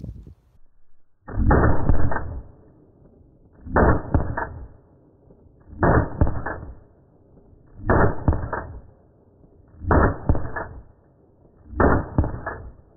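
Six pistol shots from a 2011-pattern pistol fitted with a 10 lb recoil spring, played back in slow motion, so each shot is a deep, drawn-out boom with a rattle of echoes. The shots come evenly, about two seconds apart.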